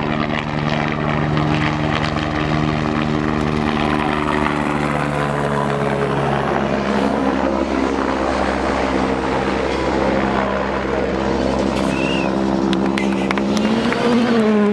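Helicopter hovering overhead with a steady rotor and engine drone. Near the end a rally car's engine climbs in pitch as it comes past on the gravel.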